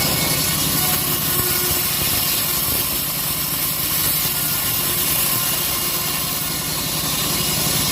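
Engine-driven homemade sawmill running steadily while its blade cuts through a teak log, the engine's even pulse under a bright high-pitched hiss of the cut.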